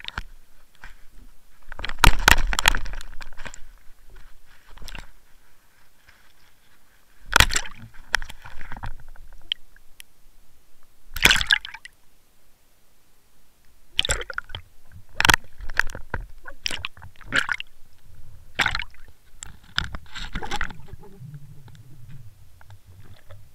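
Irregular knocks, bumps and short gushes of water picked up through the housing of a Water Wolf underwater fishing-line camera as it is jolted about in the water during the fight with a mirror carp.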